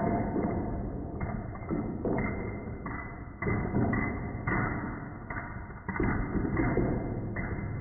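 Padlocks being handled and set down on a surface: a series of thuds and clacks, roughly one every second.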